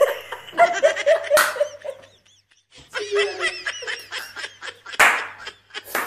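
Two people laughing in bouts, with a short pause in the middle and a short sharp noisy burst near the end.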